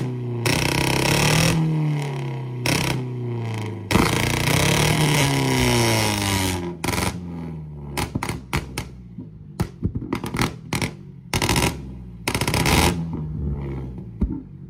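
Toyota Corolla's engine and exhaust revved up and back down twice, then a rapid, irregular string of sharp pops and bangs from the exhaust as the revs drop, with the tailpipe shooting flames.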